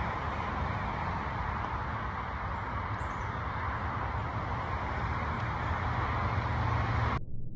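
Steady outdoor background rumble and hiss with no distinct events, cut off suddenly near the end.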